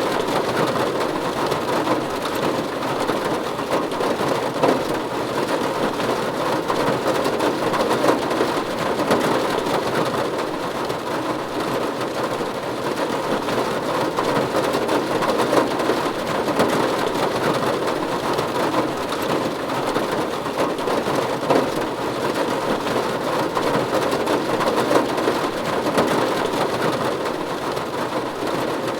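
Steady rain falling on a roof: a dense, even patter of drops that neither builds nor lets up.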